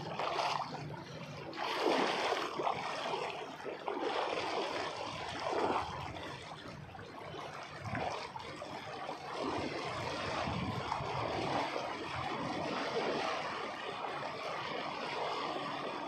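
A person wading through a flowing river, water splashing and sloshing around his legs and body in uneven surges over the steady rush of the current.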